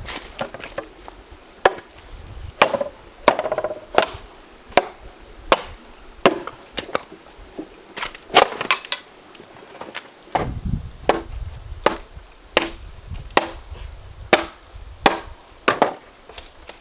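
Repeated chopping: a blade striking down on wood about twenty times, roughly one stroke every three-quarters of a second, each a sharp knock with a short ring.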